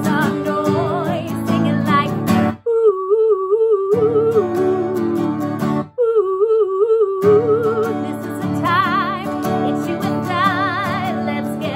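A woman singing to her own strummed acoustic guitar. Twice the guitar stops briefly, a few seconds apart, and her wavering voice carries on alone before the strumming comes back.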